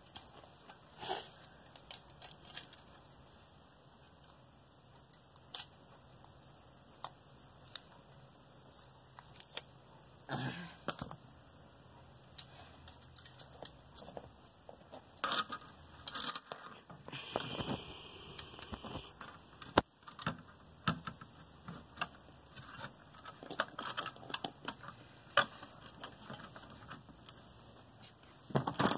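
Irregular clicks, taps and rustles of hands handling a tower CPU cooler and its small mounting parts, with one sharp click about twenty seconds in.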